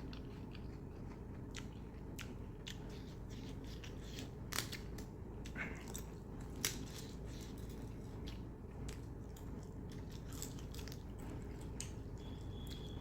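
A person chewing and biting mutton and soaked roti close to the microphone: scattered wet mouth clicks and smacks over a steady low hum, with a brief thin high tone near the end.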